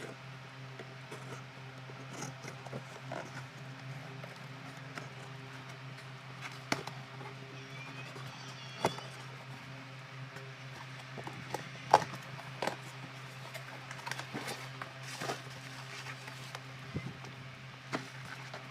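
Scattered clicks and knocks from handling a boxed toy BB pistol and its packaging, over a steady low hum. The sharpest knock comes about twelve seconds in.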